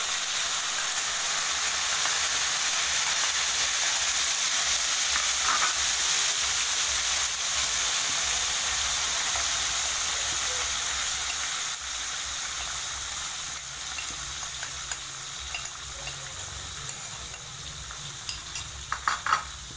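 Ground chili and spice paste sizzling steadily in hot oil in a wok, the sizzle easing somewhat about two thirds of the way through. A few sharp clicks near the end.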